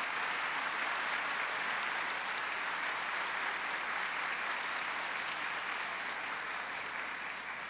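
Large audience applauding, a steady dense clapping that begins to die away near the end.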